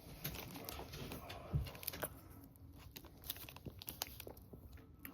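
Faint, scattered small clicks and soft crinkles of someone handling food and its plastic packaging with chopsticks, with one low thump about a second and a half in.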